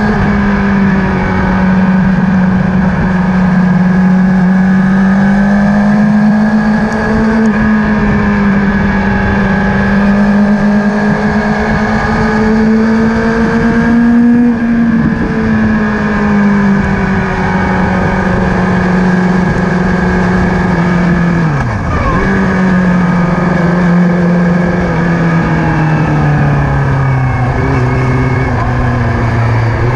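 Sport motorcycle engine running on a race track, heard onboard under a dense rush of wind noise. The engine note holds fairly steady with slow rises and falls, dips sharply and recovers once about two-thirds of the way through, and drops lower near the end as the bike slows.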